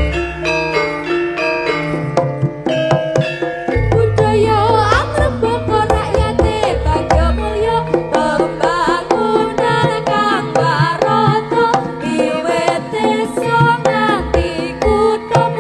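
Javanese gamelan dance music: struck metallophone notes and hand-drum strokes in a steady rhythm. About four seconds in, a high melody line with wavering, bending pitch joins.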